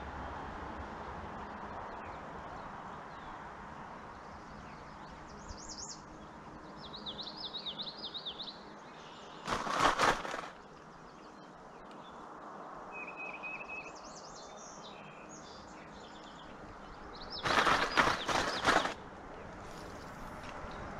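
Songbirds singing over a steady background rush. Twice, about eight seconds apart, a loud, harsh burst of rapid clicks lasting about a second stands out above everything else.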